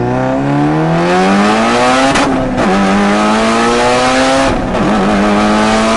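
Mitsubishi Lancer Evolution 8's turbocharged 4G63 four-cylinder engine accelerating hard at full throttle, heard from inside the cabin. Its pitch rises steadily, drops suddenly twice as it is upshifted, and climbs again after each shift.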